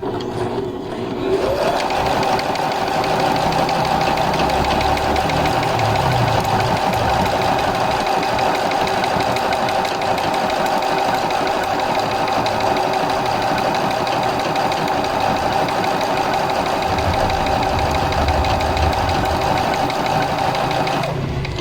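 Juki Allowne computerized sewing and embroidery machine running as it stitches a monogram pattern: the motor speeds up over the first second or so to a steady whine, holds there, and stops near the end.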